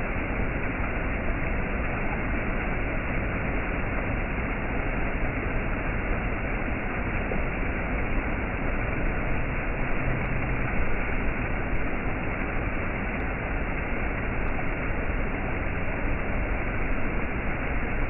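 Stream water rushing steadily over small rock cascades.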